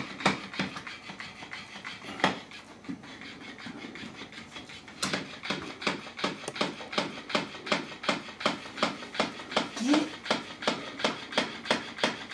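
Electric flopping-fish cat toy slapping against a hardwood floor in a steady rhythm of about three slaps a second. About two seconds in the slaps fade to a faint rustle for around three seconds, then come back strongly.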